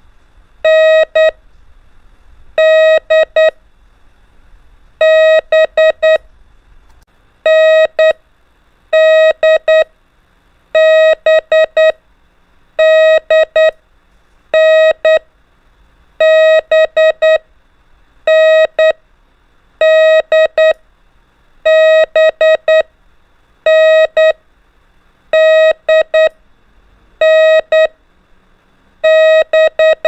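Morse code (CW) practice tone: a single steady beep keyed in dots and dashes, sending the letters N, D and B (dah-dit, dah-dit-dit, dah-dit-dit-dit) over and over, one group of characters about every two seconds.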